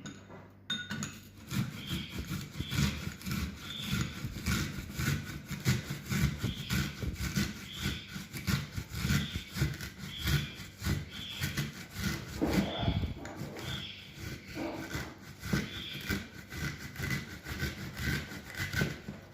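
A small red onion being grated on a fine kitchen grater, scraped across it in quick, evenly repeated strokes.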